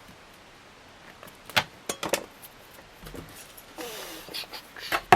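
Hands handling ceiling fan parts and wiring: a few sharp clicks and clinks of small hardware, then a brief rustle and scrape about four seconds in.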